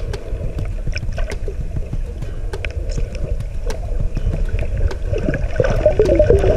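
Sperm whales clicking underwater: irregular sharp clicks, several a second, over a steady low rumble of water. Near the end a louder wavering tone comes in.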